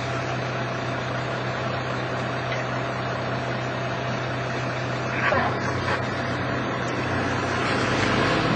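A steady engine hum runs under outdoor noise, and a deeper rumble builds near the end as a firefighting aircraft passes low over the smoke to make its drop. Faint distant voices come in briefly about five seconds in.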